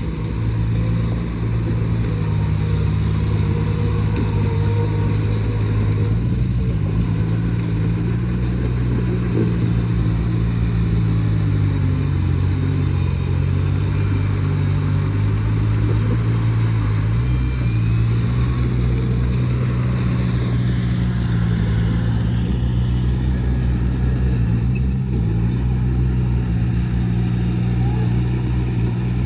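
Heavy-equipment diesel engine running steadily under load, its note drifting slightly up and down as the throttle changes.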